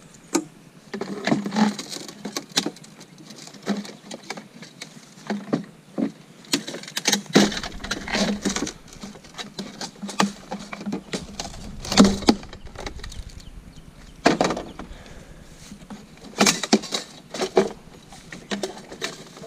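Dashboard parts of a wrecked truck being pulled and pried loose by hand: irregular clicks, knocks and rattles of plastic and metal, with one louder knock about two-thirds of the way through.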